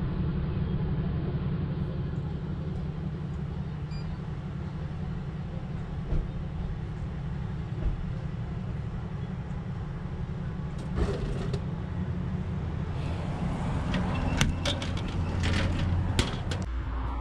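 Drink vending machine dispensing a plastic bottle: a clunk about eleven seconds in as the bottle drops, then a few seconds of clicks and clatter as it is pulled out through the dispenser flap, over a steady low hum.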